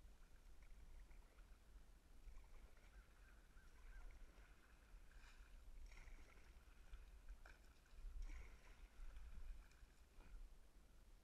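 Near silence: a faint, steady low rumble.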